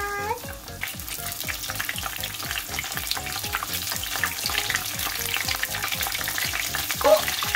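Spring rolls shallow-frying in a thin layer of oil in a pan: a steady, dense crackling sizzle.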